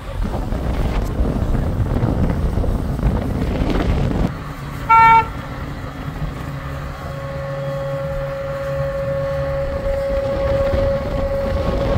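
A single short, loud horn toot about halfway through, over the steady hum of a lifeboat launch-and-recovery tractor's engine. A rushing noise fills the start and cuts off suddenly, and a steady higher tone sets in a little after the toot.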